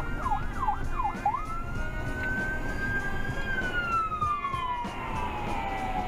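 Ambulance siren heard from inside a moving car: a few quick falling yelps, then one long wail that rises, holds and slowly falls as the ambulance comes alongside. Steady road noise runs underneath.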